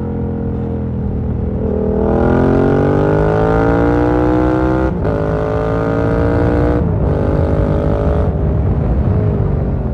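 Yamaha MT-07's parallel-twin engine accelerating hard, its pitch climbing, with two quick upshifts about five and seven seconds in, then easing off the throttle near the end. Wind rushes over the microphone throughout.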